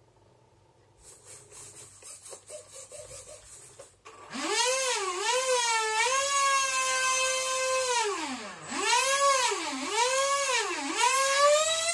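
Small 30 mm electric ducted fan on a model plane, whining loudly from about four seconds in, its pitch dipping and rising several times as the throttle is worked. Faint ticking comes before it.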